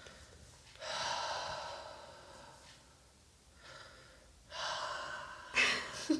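A person taking slow, deep breaths in time with a smartwatch's guided breathing exercise. There is a long breath about a second in, a fainter one near four seconds, and two more close together near the end, the last one sharper.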